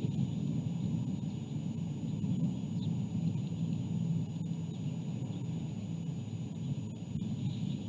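Steady low outdoor background rumble on the nest camera's microphone, with a faint high hiss and a few faint ticks; no clear footsteps or voices stand out.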